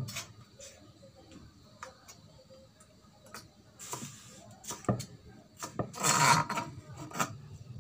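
A cleaver knocking on a thick wooden chopping block in irregular single strokes as bell peppers are sliced. About six seconds in comes a louder, longer scrape as the cut pieces are swept together across the board.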